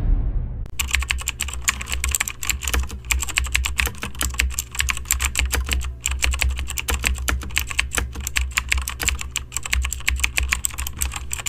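Rapid, irregular computer-keyboard typing clicks, a sound effect for text appearing letter by letter, starting just under a second in over a steady low hum.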